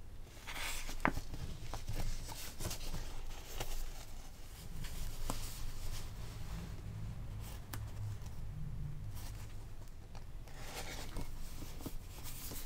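Folded paper signatures and sewing thread being handled while a book's text block is hand-sewn: intermittent soft paper rustles and scrapes with scattered small ticks.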